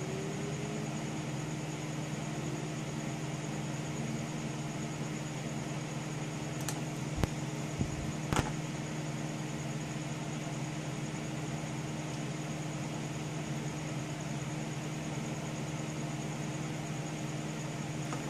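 Steady hum and fan whir of a running computer, with three short clicks about seven to eight and a half seconds in.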